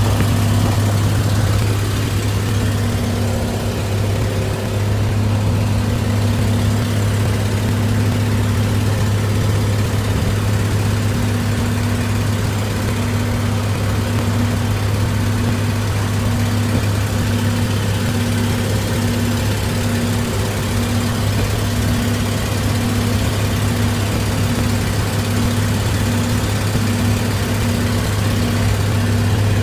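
1957 Mack B85 fire truck's engine running steadily as the truck cruises at an even road speed, with road and wind noise mixed in.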